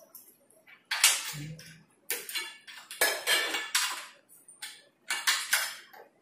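A run of short metallic clinks and scrapes from the chrome-capped steel legs of a dining table as they are handled and fitted.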